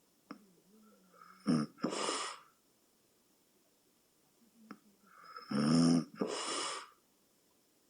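A sleeping person snoring: two snoring breaths about four seconds apart, each a short buzzing snore followed by a rush of breath.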